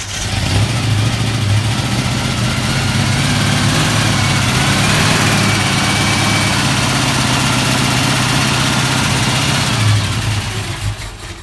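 1965 Mercury Comet's engine idling steadily just after a cold start in freezing weather, easing off slightly near the end.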